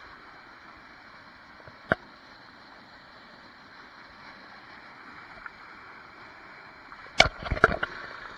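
Small waterfall cascading between boulders into a rock pool: a steady rush of water. A single sharp knock about two seconds in and a cluster of louder knocks near the end stand out over it.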